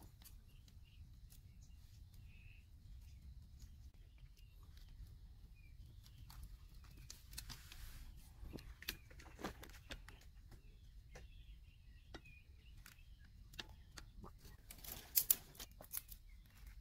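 Faint scattered clicks, taps and rustles of hands handling raw chicken, a bamboo skewer and dry twigs, with a quick cluster of sharper clicks and snaps about fifteen seconds in.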